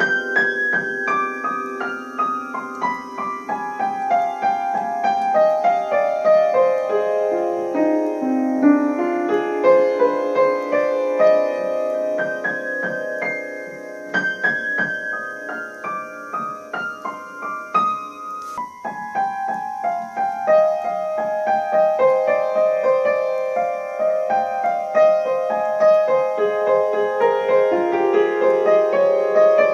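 Solo piano music, dense with quick successive notes and shifting chords.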